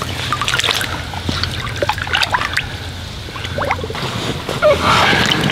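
Shallow water splashing and trickling in irregular bursts as hands move in it around a carp retainer sling, with a busier spell of splashing near the end.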